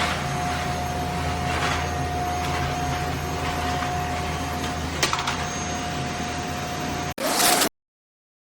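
Bissell Zing bagless canister vacuum cleaner running steadily, a constant tone over its motor noise. Near the end it cuts out, comes back louder for half a second, then stops dead.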